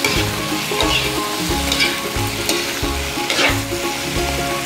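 Vegetables (carrots, bell peppers, tomatoes, onion and garlic) sizzling as they are stir-fried in a metal wok, with a spatula scraping and tossing them about once a second. Background music with a steady beat runs underneath.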